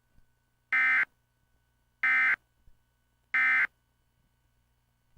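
Emergency Alert System end-of-message code: three short, harsh digital data bursts about a second apart, the SAME 'NNNN' signal that closes the warning.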